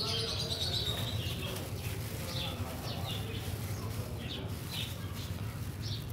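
Small birds chirping outdoors: a quick run of high chirps near the start, then short single chirps every second or so, over a steady low background hum.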